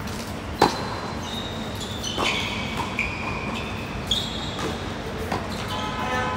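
Tennis rally on a hard court: several sharp racket-on-ball hits, the loudest about half a second in, with high squeaks of tennis shoes on the court surface between the shots.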